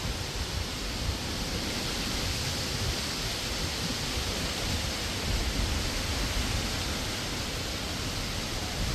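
Strong wind blowing in a steady rush, with uneven low rumbling from gusts buffeting the microphone.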